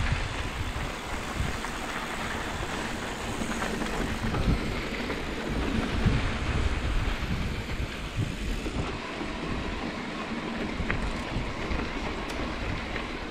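Electric mountain bike's knobby tyres rolling and crunching over a dirt road, with a steady low rumble and wind rushing over the microphone.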